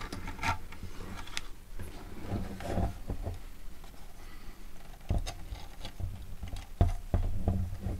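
Hands handling a plastic utility box and wiring on a wooden tabletop: rustling, light scraping and small clicks as wires are pulled through a grommet, with a few louder knocks of the box and metal parts in the second half.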